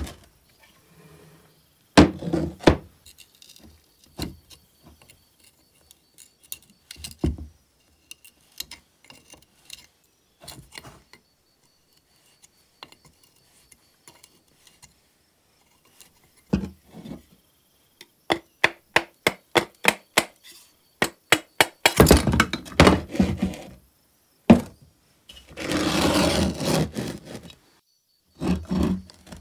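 Metal hand tools working on a vintage two-stroke chainsaw engine: scattered clinks and knocks, then a run of quick clicks from a wrench on the cylinder base nuts. Near the end come longer stretches of scraping and rubbing as the cylinder is worked off the piston.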